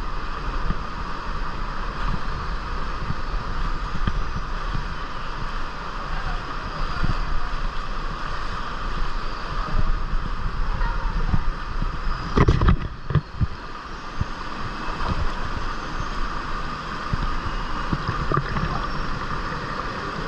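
Rushing river water running steadily through a rocky canyon, with wind buffeting the microphone. A loud thump comes about twelve seconds in, with a few lighter knocks around it.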